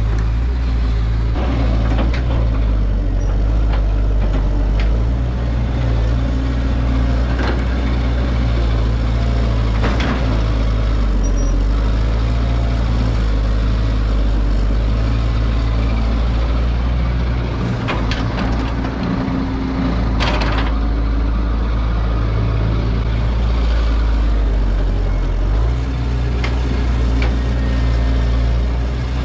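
Caterpillar excavator's diesel engine running steadily under load, with a few sharp knocks, the strongest about twenty seconds in.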